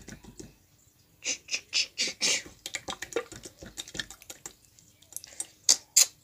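Green slime squeezed and stretched in the hands, making quick wet clicks and pops, a dense run of them about one to two and a half seconds in and two sharp pops near the end.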